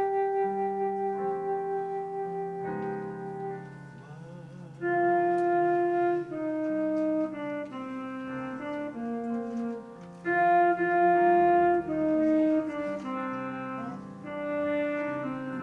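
Slow instrumental music: a melody of long held notes over sustained chords. It drops quieter about four seconds in, then returns with louder phrases.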